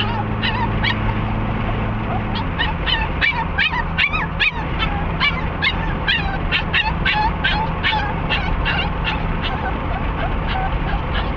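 Chihuahua giving short, high-pitched excited whines and yips, about three or four a second, over the steady hum of the car's engine and road noise. The engine note drops a little about two seconds in.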